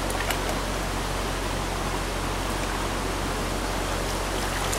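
Stream water rushing steadily over a shallow, rocky riffle.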